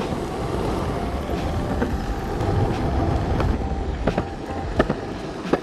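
Miles Phantom electric skateboard rolling on pavement: a steady rumble of the wheels on the concrete, with a few sharp clicks in the second half.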